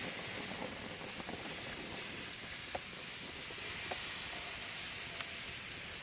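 Shrimp and chicken sizzling on a hot grill: a steady hiss with a few small pops.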